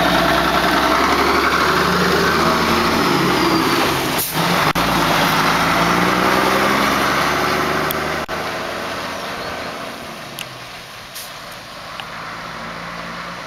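Old DAF truck's diesel engine pulling away and driving past, its note rising as it picks up speed with a short break about four seconds in, then fading steadily as the truck goes off down the road.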